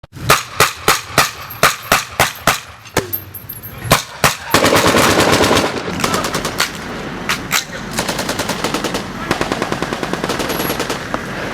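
Battle gunfire sound effect. About nine single gunshots at roughly three a second, then two more. From about four and a half seconds in, long bursts of rapid machine-gun fire, loudest at the start of the bursts.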